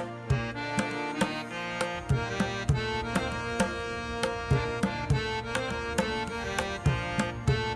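Background music: a tabla-like hand drum strikes a steady beat over a sustained melodic drone, in the style of Indian classical music.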